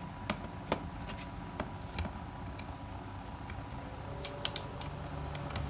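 Scattered small clicks and taps of a laptop DVD drive's rear mounting bracket being taken off by hand, with a few clicks close together near the end.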